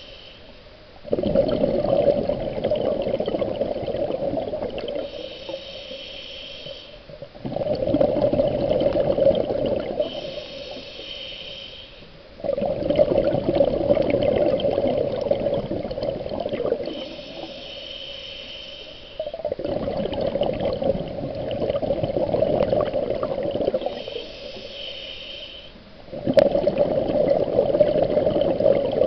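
Scuba diver breathing through a regulator underwater. Each breath is a short hiss on the inhale, followed by a longer bubbling rush of exhaled air from the regulator lasting three to four seconds. There are about five breaths, with a sharp click at the start of the last exhale.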